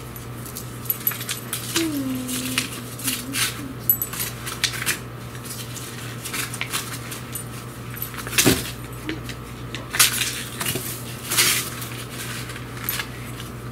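Paper and plastic crinkling and rustling as a birthday card is pulled from its envelope and gift bag, with a few louder handling knocks. A dog close by gives a short whine about two seconds in.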